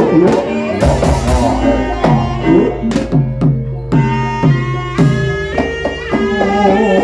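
Live gamelan accompaniment for an ebeg horse trance dance: a kendang hand drum beats a busy, steady rhythm over ringing struck metal keyed percussion.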